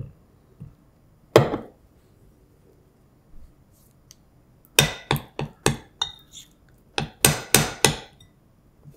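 A metal spoon clinking against a glass mixing bowl while stirring powder and water into batter: a single clink about a second in, then two quick runs of clinks in the second half.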